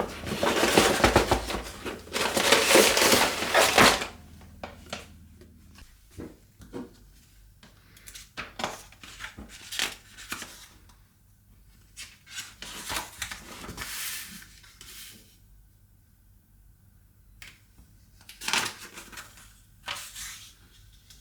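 LEGO bricks being handled: a few seconds of loud rustling and clattering at the start, then scattered sharp clicks and clatters of plastic pieces, with a short lull partway through.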